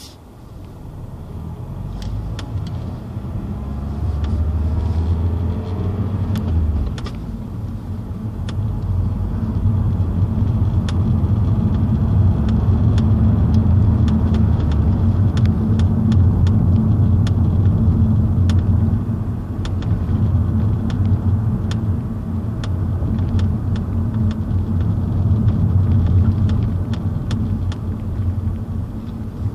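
Mazda 3 Sport's dashboard area clicking sharply and irregularly over steady engine and road rumble inside the cabin of the moving car. The rumble builds over the first few seconds. The clicks come from a wiper bracket, a known fault covered by a Mazda service bulletin whose fix is to bend the bracket slightly.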